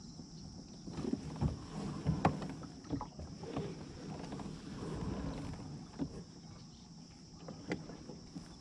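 A pedal-drive fishing kayak under way, with water moving along the hull and scattered light knocks and clicks as the pedals turn.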